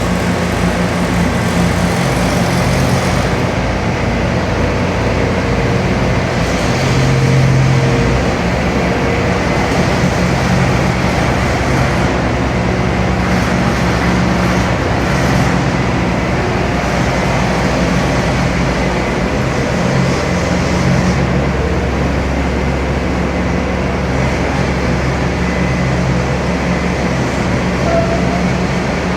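Bobcat S510 skid steer's diesel engine running steadily, its low note shifting about a quarter of the way in and again past the middle.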